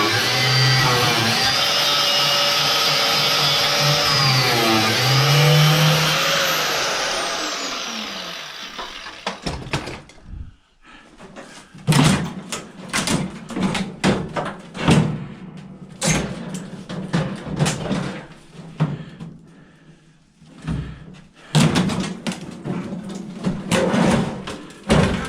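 Background music that fades out over the first several seconds, then irregular knocks and clanks of hand tools working on the metal case of an old microwave oven.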